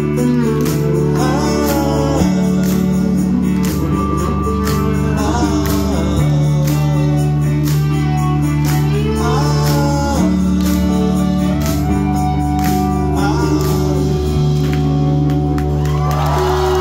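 Live band music: a singing voice over guitar, held bass notes and a steady drum beat.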